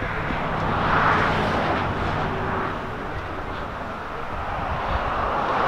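Street traffic outdoors: the noise of a passing car swells and fades about a second in, and another grows louder toward the end.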